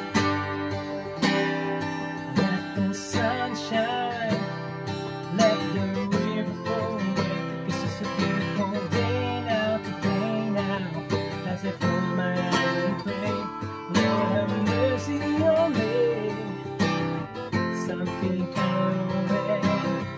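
Acoustic guitar strummed steadily, with a man singing along from about three seconds in.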